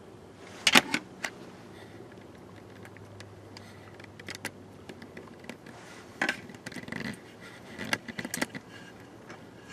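Scattered sharp clicks and light metallic clinks, like small metal parts being handled, loudest about a second in and again in a cluster from about six to eight and a half seconds in.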